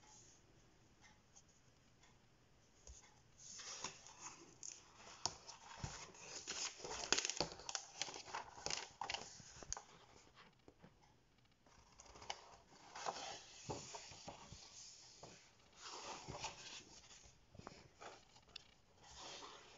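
Pages of a large paperback colouring book being opened and turned by hand: spells of paper rustling and soft flaps of stiff pages, starting about three seconds in and pausing now and then.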